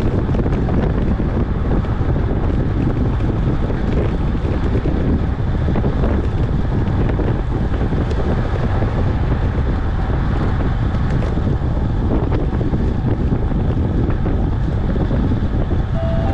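Wind buffeting the microphone of a camera riding on a moving bicycle: a steady, loud rumbling rush.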